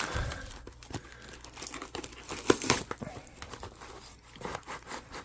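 Packing material rustling and crinkling as a mailed box is unpacked by hand, with irregular crackles and a sharper click about two and a half seconds in.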